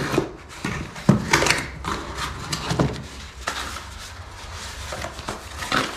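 Cardboard packaging being handled and opened: box flaps and a cardboard insert rustle and scrape, with a few sharp knocks as pieces are set down or bump together.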